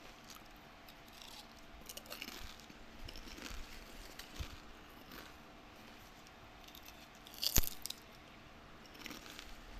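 Watermelon being bitten and chewed: scattered wet, crunchy bites, with one much louder, sharp crunch about seven and a half seconds in.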